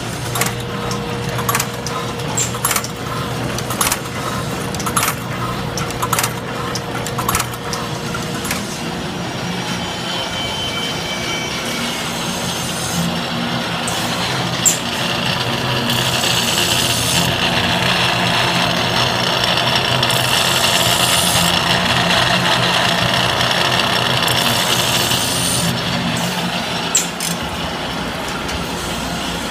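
Automatic saw-sharpening grinders running: a steady machine hum with sharp clicks about once a second, then a louder hissing grind of a wheel on metal in repeated passes through the middle, easing off near the end.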